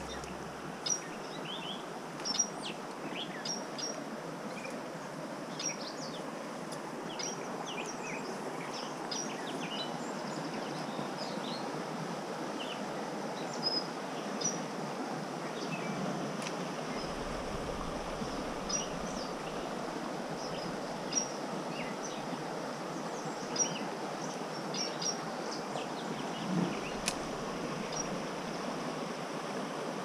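Steady rush of a small creek's running water, with many short bird chirps throughout and a few short clicks.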